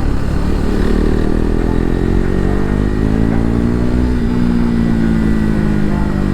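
KTM RC 390's single-cylinder engine under way, its pitch climbing steadily for about three seconds as the bike accelerates, then easing back, over a steady low wind rumble.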